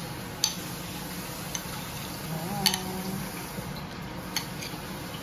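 A metal spoon clicking and tapping against oyster shells and a baking tray as butter is spooned onto the oysters: about six sharp light clicks, the loudest near the middle.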